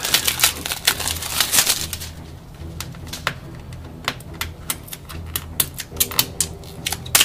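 Plastic wrapping crackling and fingernails clicking and scraping on a plastic Blu-ray case as the shrink-wrap and seal are picked off. It is a rapid run of small clicks for about two seconds, then scattered clicks, with two louder snaps near the end.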